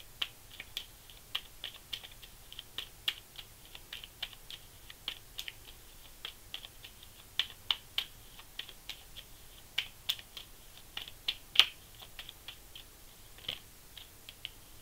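A tarot deck being shuffled by hand: a run of light, irregular card clicks and slaps, a few each second, with one louder snap late on.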